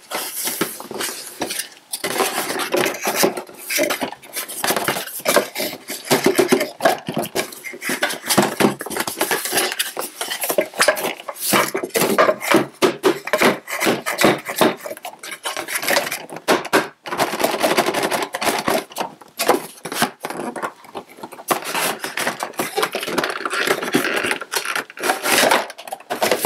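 Cardboard boxes and packaging being handled during an unboxing: a dense, irregular run of scrapes, rubs and knocks.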